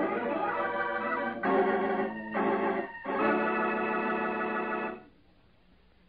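Dramatic organ music bridge: four sustained chords, the last held for about two seconds before it stops about five seconds in.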